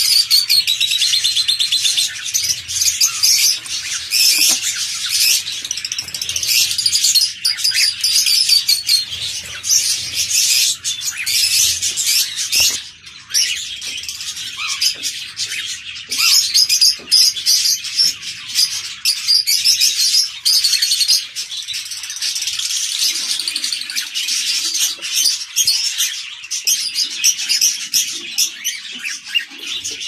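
Many caged birds in an aviary chirping rapidly and continuously, high-pitched and dense, with an occasional sharp click.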